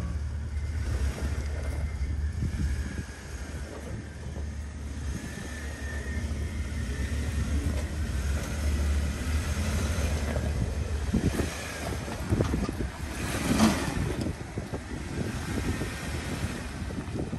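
Lifted Jeep Wrangler JK Unlimited rock crawling: the engine runs low and steady under load. A cluster of knocks and scrapes from the tires and drivetrain on the rock comes about two-thirds of the way through, the loudest of them a sharp knock.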